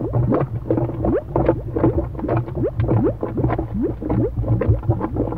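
Cartoon lava-bubbling sound effect: thick bubbles popping in a dense, continuous run, each pop a short upward-gliding bloop, over a steady low rumble.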